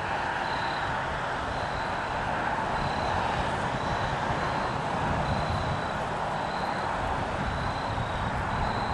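Strong wind buffeting the microphone: a steady rushing noise with an uneven low rumble. A faint high chirp repeats every second or so.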